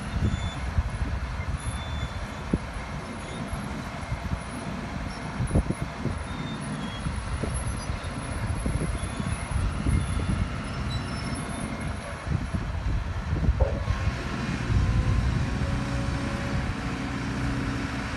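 Diesel engine of a SANY SY215C amphibious excavator running steadily as its boom works, a mechanical drone with irregular low rumbling. About three-quarters of the way through, a steadier, firmer engine tone comes in.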